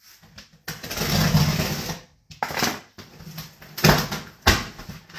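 Cardboard shipping box being handled: a scraping rustle lasting just over a second, then a few sharp knocks as the box and its contents are moved.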